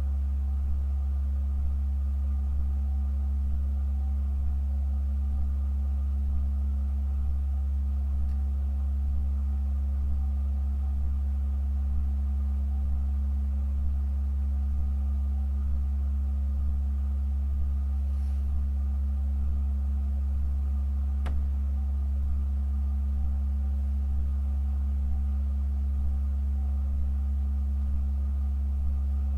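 Pipe organ holding one low, steady note with a fainter tone above it, unchanging and without attack or rhythm.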